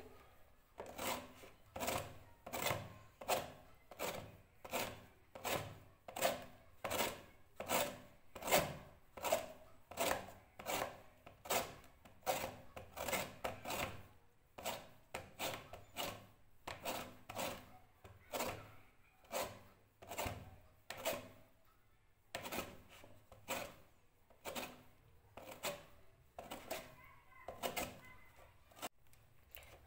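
Lemon being grated on a flat stainless-steel hand grater: a steady run of short rasping strokes, about three every two seconds, with short pauses now and then. Only the thin yellow outer peel is being zested off, with light pressure.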